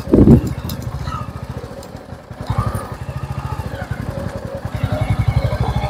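Royal Enfield Meteor 350's single-cylinder engine running at low speed with an even, steady thump. It gets a little louder from about two and a half seconds in.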